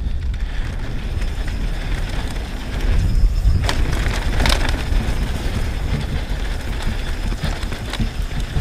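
Specialized S-Works Demo 8 downhill mountain bike running fast down a dirt trail: tyres rolling over dirt and gravel with the bike rattling and wind buffeting the camera's microphone. Two sharp clatters come about three and a half and four and a half seconds in.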